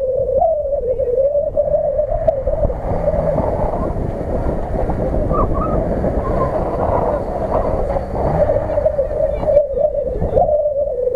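Off-road 4x4's engine running hard at high revs, a wavering whine that holds roughly steady in pitch over a low rumble.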